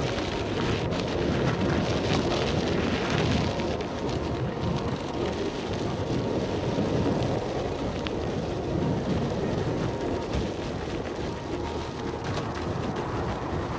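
Steady wind rush and rumble on the microphone, with tyre noise, from an electric unicycle riding a dirt singletrack trail.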